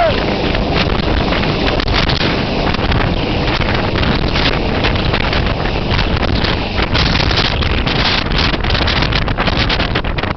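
Loud, steady rushing noise of a rescue helicopter close by, with wind buffeting the microphone in irregular gusts.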